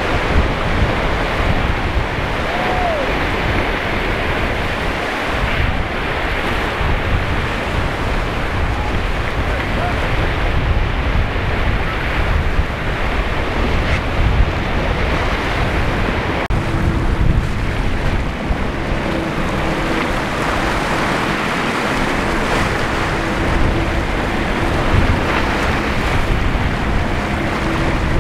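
Surf and waves washing, with wind buffeting the microphone. About halfway through, a boat engine's steady drone joins in.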